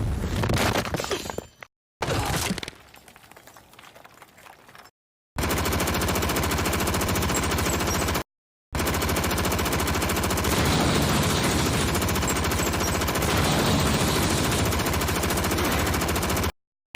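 A run of separate anime sound-effect clips, each cut off by silence: a short hit fading away, another that dies down over a few seconds, then two long stretches of very rapid, steady rattling fire like a machine gun.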